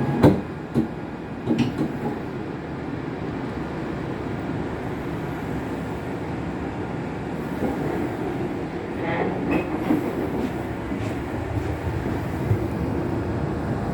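A few sharp thumps in the first two seconds as the Shinkansen's doors shut, then the steady low rumble of the Hokuriku Shinkansen train setting off. A few clicks come about nine to ten seconds in.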